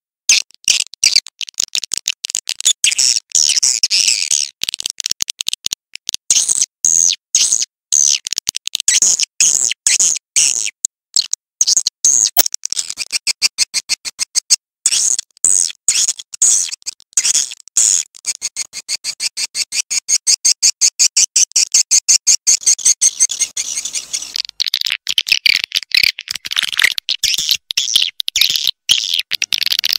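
Swiftlet calls from a lure recording of the kind played to draw swiftlets into a nesting house: dense, rapid, high-pitched twittering chirps in quick runs with short gaps.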